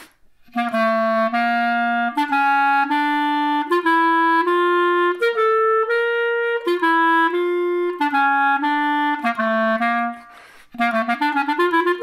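Clarinet playing a double-tonguing rhythmization exercise: a C major scale up and back down in a short-long rhythm, the long note on the ka. After a brief pause near the end, a run of rapid, evenly tongued notes begins.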